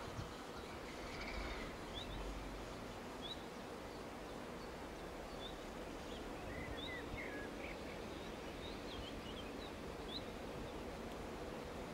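Diesel locomotive engine running at idle, a faint steady hum, with small birds chirping briefly again and again.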